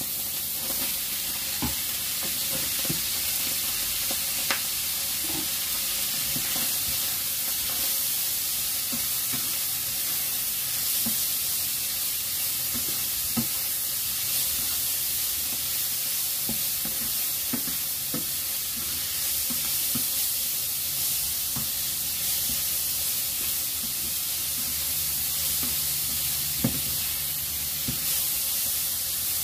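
Bean sprouts and shredded chicken sizzling in hot oil in a nonstick frying pan, stirred and tossed with a wooden spatula that scrapes and knocks against the pan now and then, with a sharper knock twice.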